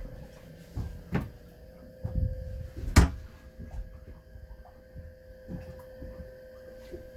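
A door being handled: a few knocks, then a sharp latch click about three seconds in, over a steady hum.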